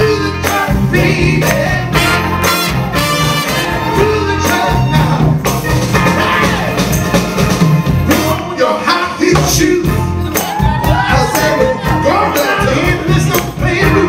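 Live Motown soul band playing an up-tempo number with a steady drum beat, bass, horns and singing; the horn or voice bends notes in sliding runs about two-thirds of the way through.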